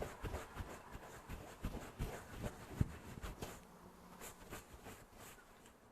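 An eyeshadow brush sweeping and tapping in short strokes, with soft scratchy ticks; the strokes grow fainter and sparser about halfway through.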